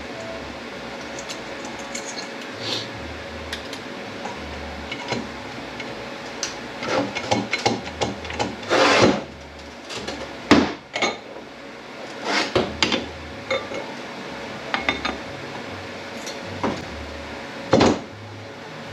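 Metal parts of a 10R80 automatic transmission clinking and knocking as they are worked loose and handled during teardown, with a run of louder metal clatter a little before the middle and sharp single knocks near the middle and near the end.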